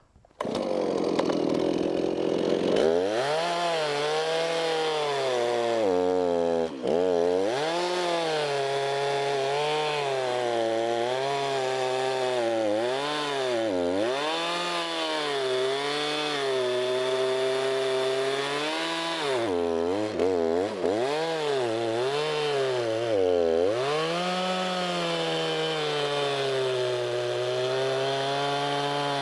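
Stihl MS311 chainsaw's two-stroke engine running at high revs while cutting into a white oak log, its pitch rising and falling with the load. It drops sharply several times as the throttle eases or the chain bogs in the cut.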